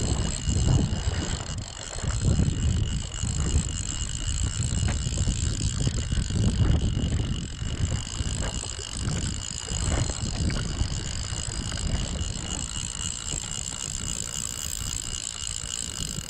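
Fly reel's click-and-pawl drag buzzing steadily as a hooked salmon runs and pulls line off the reel, over a low rumbling noise; the buzz stops abruptly at the very end.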